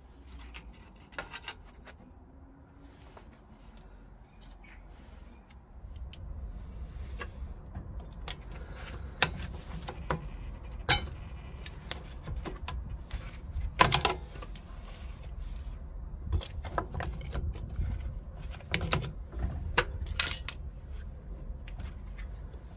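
Irregular metal clinks and taps of pliers working on a rear drum brake's steel shoes and springs, the sharpest clinks about halfway through. Under them runs a steady low rumble that grows stronger about a quarter of the way in.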